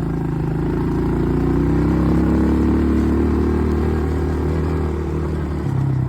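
ATV engine running while riding, its pitch climbing a little about a second in as the throttle opens, then easing off near the end.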